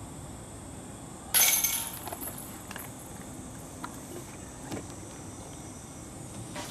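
A putted golf disc strikes the hanging chains of a disc golf basket about a second and a half in: a sudden metallic chain rattle that rings and fades within about half a second, followed by a few faint clinks.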